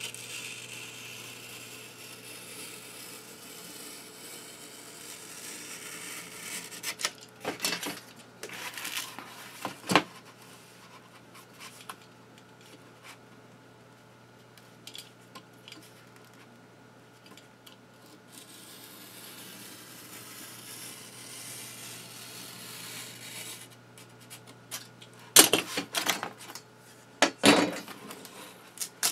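Snap-off utility knife drawn along a steel ruler, slicing foamboard at a 45-degree bevel in two long scraping strokes. The ruler and knife knock and clatter against the bench as they are moved and set down, loudest near the end.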